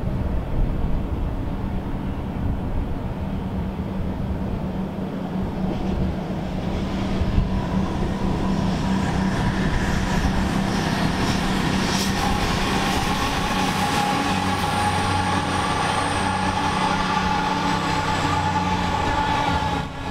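Ex-CrossCountry HST Class 43 power car's MTU diesel engine and the test train's wheels on the rails as the train approaches and passes. A steady low engine drone grows louder from about six seconds in, with a whine above it.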